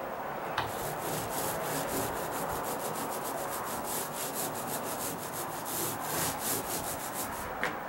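Paint roller on an extension pole being rolled back and forth through wet paint over a bare OSB deck floor, a continuous fine crackling hiss that swells with each stroke. Two sharp clicks, about half a second in and near the end.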